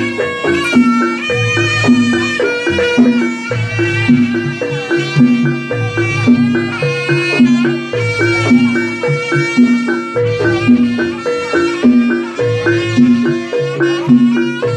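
Live jaranan gamelan music: a nasal, reedy shawm (slompret) plays the melody over a steady repeating pattern of low drum and gong-chime notes.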